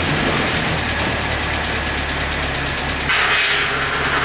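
Land Rover Series 2's petrol four-cylinder engine, rebuilt and bored out to 2.5 litres, idling steadily soon after its first start, not yet tuned up. A louder hiss joins about three seconds in.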